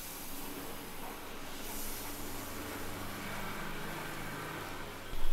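Tomato and spice masala frying in oil in a nonstick kadhai, a steady soft sizzle as a wooden spatula stirs it, with a low steady hum underneath. This is the bhuna stage, the tomatoes being fried down with the spices.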